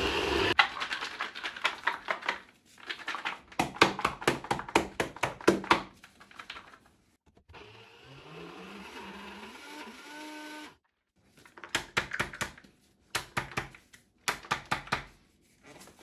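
NutriBullet blender grinding roasted hazelnuts to powder, worked in many short, rapid pulses, with a stretch of about three seconds of continuous running in the middle whose pitch climbs before it cuts off. The ground nuts are caking onto the jar wall, so the blade has started to spin almost free.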